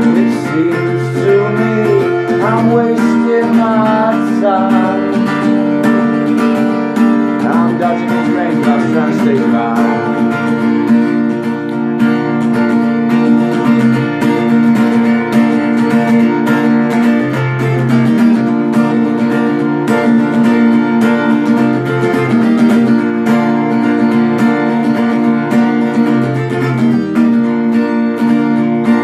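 Acoustic guitar strummed steadily through a chord progression, an instrumental break in a singer-songwriter's song.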